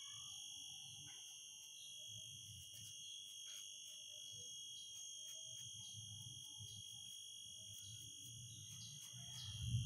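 Soft, irregular strokes of a bristle brush through a Shih Tzu's fur, faint, under a steady high-pitched whine.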